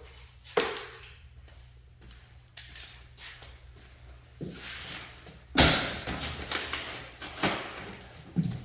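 Packing materials being handled while unpacking a boxed e-bike: rustling and scraping broken by a string of sharp knocks and thuds, the loudest about five and a half seconds in.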